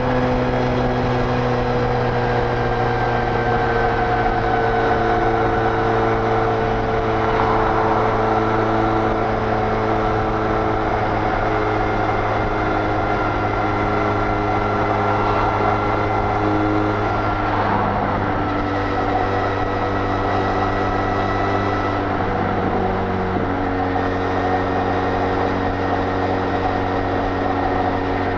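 Benelli Leoncino 500's parallel-twin engine through its stock exhaust, held at high revs at highway speed near top speed, with wind rush. The engine note stays nearly steady, with small shifts in pitch about two-thirds of the way through.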